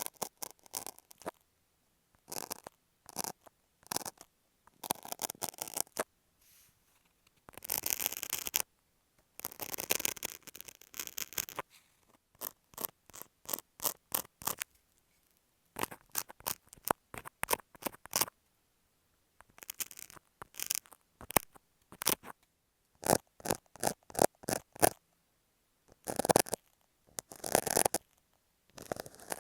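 Utility knife and masking tape worked right against an earphone microphone, making runs of sharp clicks and longer scraping strokes with short pauses between them.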